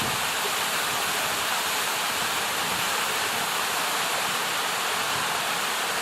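Waterfall and creek water rushing steadily, a loud, even roar.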